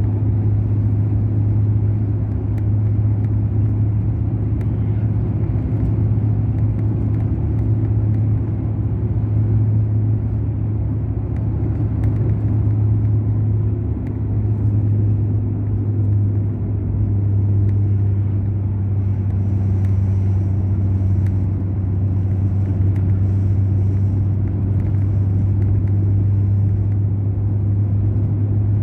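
Mercedes-Benz O500 RSD coach's BlueTec5 diesel engine running steadily at a constant cruising speed, a deep, even drone with no revving.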